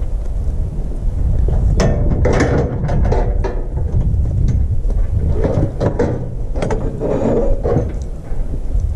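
Steel cattle chute rattling and clanking, a run of metallic clicks and knocks from about two seconds in until near the end, with wind rumbling on the microphone throughout.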